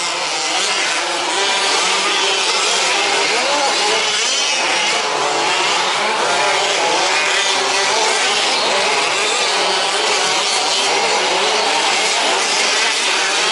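Several 1/5-scale RC trucks' small two-stroke petrol engines racing at once, their overlapping pitches rising and falling as the trucks accelerate and back off.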